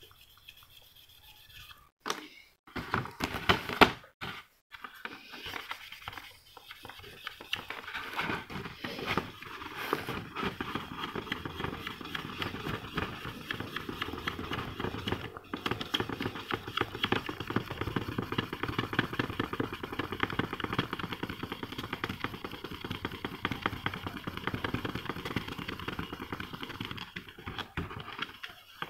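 Small sanding pad rubbed rapidly back and forth over the hardened 2K clear coat of a plastic model car body, wet-flattening dust particles before polishing. A few knocks and handling noises come first; from about six seconds in the scratchy strokes run on fast and steady.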